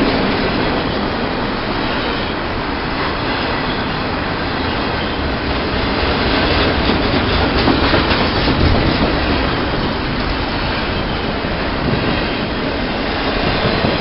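A train rolling past close by: a steady rush of rail noise that stays loud throughout.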